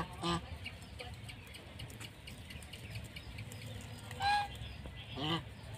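Domestic geese giving short honking calls: two close together at the start, the loudest about four seconds in, and another a second later.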